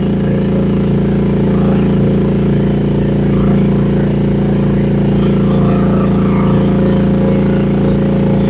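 Rippa R10 mini excavator's gasoline engine running steadily at a constant speed while the machine digs with its boom and bucket.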